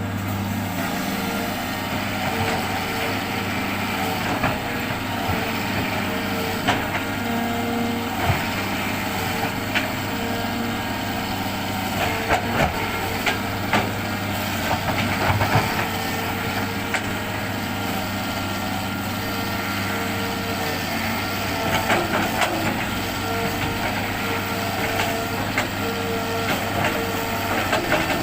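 Hitachi excavator's diesel engine running steadily as it works, with scattered short knocks and clatters over the hum.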